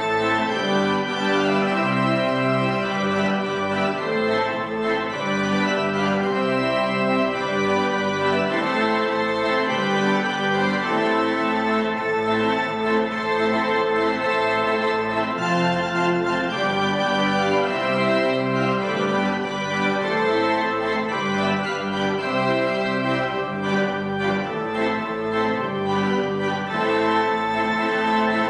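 Church pipe organ playing a slow chordal piece, full held chords moving from one to the next every second or two at a steady volume.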